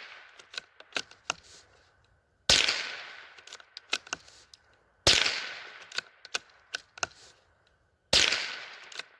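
Three shots from a Howa M1100 semi-automatic .22 LR rifle, spaced about two and a half to three seconds apart, each trailing off in an echo, with lighter clicks between them. The rifle is firing and cycling without a jam so far.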